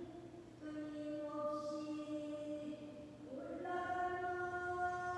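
A Korean traditional singer (sorikkun) singing long held notes, gliding up to a higher sustained note about three and a half seconds in.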